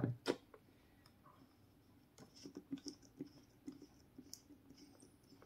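Faint plastic clicks and ticks as a spray head is twisted and pressed onto a plastic bottle, one click at the start and then a scattered run of small clicks from about two seconds in.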